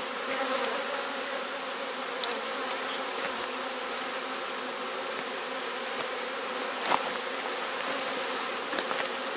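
Steady dense buzzing of a honeybee swarm, many bees in the air at once, just after the swarm has been shaken into a hive box. A light knock comes about seven seconds in.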